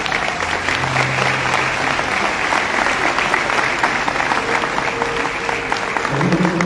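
Audience clapping, a dense steady patter of many hands, with music playing underneath.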